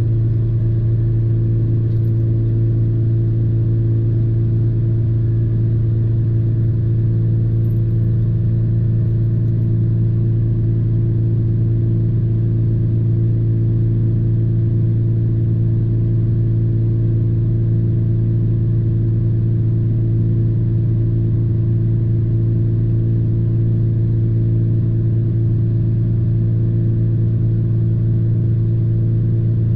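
Truck's engine idling while parked, a steady low hum that does not change, heard from inside the cabin.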